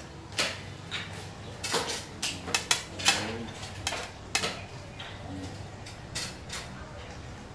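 Irregular sharp clicks and clacks of small hard objects, about two a second, loudest around two to three seconds in.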